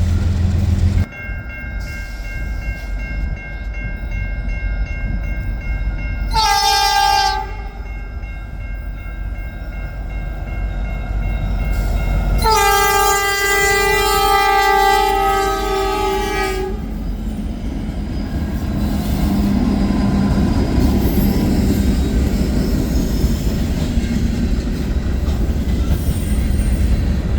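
Locomotive air horn sounding one short blast, then a long blast of about four seconds, over the steady rumble and clatter of a train rolling by.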